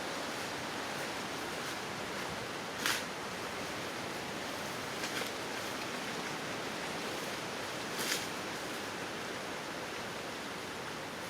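Steady outdoor hiss with three short, sharp rustles, about three, five and eight seconds in.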